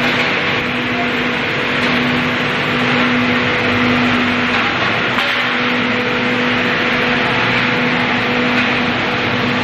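Stainless steel high-pressure tunnel tray washer running: a steady loud hiss of spraying water over a steady motor hum.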